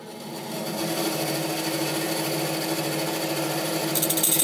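Delta band saw with a bi-metal blade running, its motor hum rising to speed over the first second and then holding steady. About four seconds in, the blade starts cutting a hammered-flat piece of silverware, adding a high-pitched chattering.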